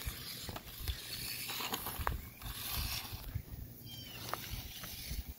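Toy RC monster truck's small electric motor and gears whirring as it drives over grass, easing off about three seconds in, with a few clicks.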